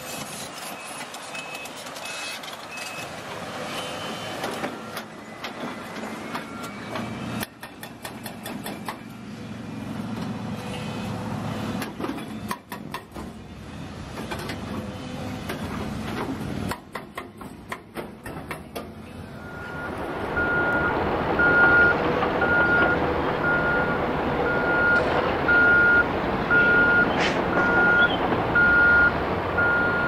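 Heavy construction machinery working: a Kawasaki wheel loader's diesel engine with its reversing alarm beeping at the start, then knocks and clatter of broken concrete and rock. For the last third a louder, lower-pitched reversing alarm beeps about once a second over steady engine noise.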